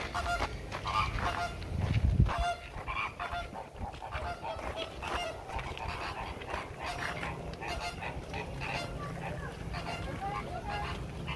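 A flock of flamingos honking: many short calls overlapping one another, with a brief low rumble about two seconds in.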